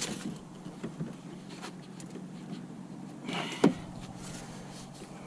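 Handling noise from pushing a kayak seat pad's plastic fasteners into place: a sharp click at the start and a louder one about three and a half seconds in, just after a short scraping rustle, over a faint steady hum.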